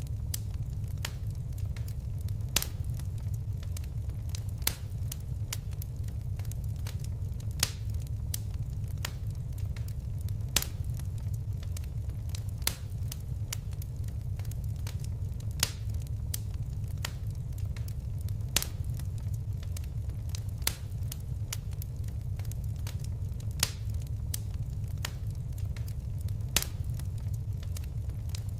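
Fire crackling: a steady low rumble of flames with frequent sharp pops and snaps, a louder pop every few seconds.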